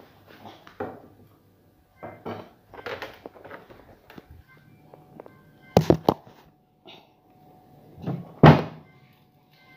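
Household knocking and clatter in a kitchen, objects and doors being handled: scattered light knocks, then three sharp bangs close together about six seconds in and a heavy thump about eight and a half seconds in. Faint music plays underneath.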